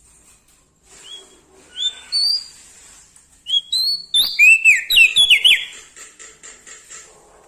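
Prenjak daun Lombok singing clear whistled notes. A few spaced rising notes come about a second in, then a louder, rapid run of upslurred and downslurred whistles follows from about three and a half seconds. A faint, steady high hiss lies underneath.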